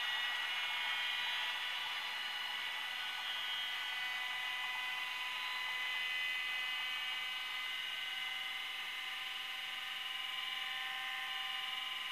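Piko sound decoder in a model BR232 diesel locomotive playing its recorded diesel engine running sound through the model's small loudspeaker. It is a steady, tinny hum of several held pitches with no bass.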